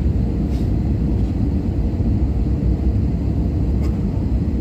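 Steady low rumble and hum inside a parked airliner's cabin, with two faint clicks about half a second and about four seconds in.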